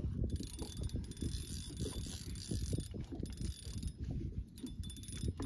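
Fishing reel being cranked to bring a hooked lake trout up to the boat. A fine mechanical whir runs from just after the start until nearly four seconds in, over irregular low knocks.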